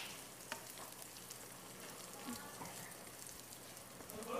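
Food frying in a nonstick pan, a faint steady sizzle, as a spatula stirs it, with a few small faint ticks.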